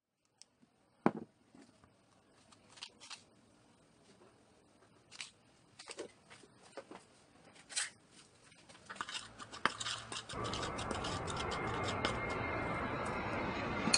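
Scattered sharp clicks and knocks of a spoon and hands against ceramic bowls while raw chicken and seasoned flour are handled, the loudest knock about a second in. About ten seconds in, a denser, louder steady noise sets in.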